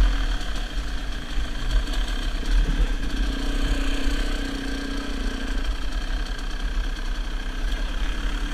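KTM dirt bike engine running at low speed, with a heavy low rumble on the helmet-mounted camera's microphone.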